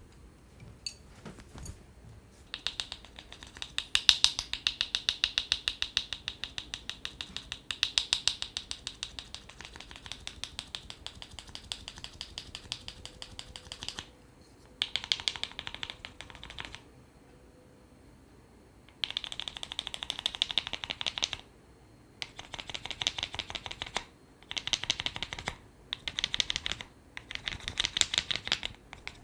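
Rapid percussive massage strokes, many quick taps a second, striking a person's head in bursts: one long run of about ten seconds, then several shorter runs of one to three seconds with brief pauses between.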